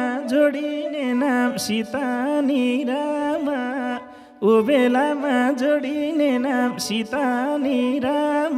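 Nepali lok dohori folk band playing an instrumental passage: a melody of bending, ornamented notes over a steady lower line, with hand-drum strokes, and a short drop-out about four seconds in.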